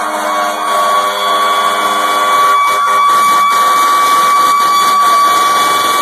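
Fire engine siren holding a steady high whine at one pitch as the fire trucks pass, with a lower droning tone under it that stops about two seconds in.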